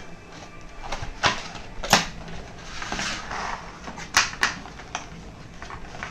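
Folded white paperboard packaging being handled and unfolded on a table: a few sharp taps and snaps, with a short papery scrape between them.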